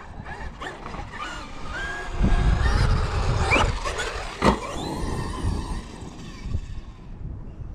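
Traxxas XRT electric RC monster truck driving over concrete: tyres rumbling and the brushless motor whining up in pitch as it speeds up, then a sharp clack about four and a half seconds in as it lands from a jump.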